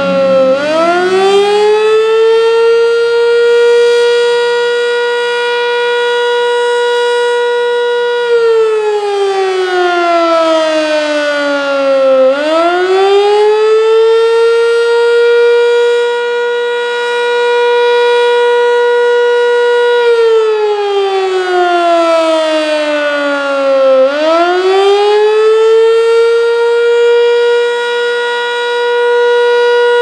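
Sentry 7V8-B outdoor warning siren sounding its attack signal, a loud wail. It holds its top pitch for about seven seconds, slides down over about four seconds, then swoops quickly back up, and it does this twice.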